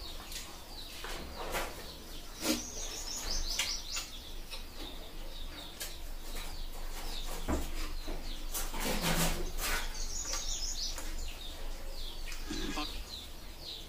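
Birds chirping, with two runs of quick high chirps stepping down in pitch, one a few seconds in and one near the end. Over them come close eating sounds: clicks and smacks of chewing, and a hand mixing rice.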